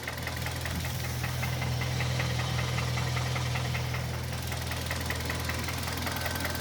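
Hyundai/Kia G4KD 2.0-litre four-cylinder petrol engine idling hot, with a fast, even knocking ticking over its steady drone: the knock that this engine shows once warm.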